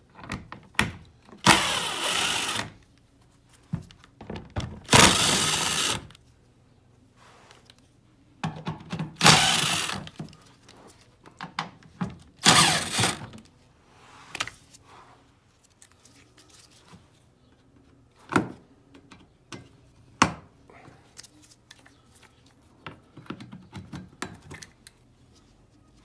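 Cordless power driver spinning out the screws and bolts of a car's underbody shield in four short runs of about a second each during the first half. After that come scattered clicks and knocks as clips and the loosened panel are handled.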